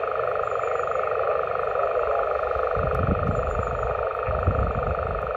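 Steady static hiss from an open 11 m CB receiver's speaker (a Yaesu FT-857 transceiver), with wind gusting on the microphone from about three seconds in.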